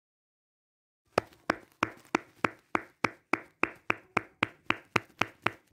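Hands clapping at a steady pace of about three claps a second. The clapping starts about a second in.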